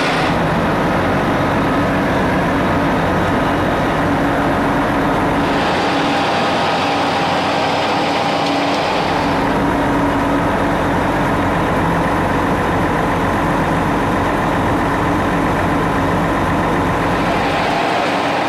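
Emergency vehicles idling: a steady engine drone with hiss. It changes abruptly a few times, as the sound cuts between shots.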